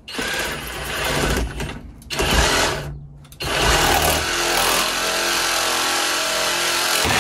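Power saw cutting through plastic dust-collection pipe. It runs for about three seconds, stops briefly, then cuts steadily until near the end.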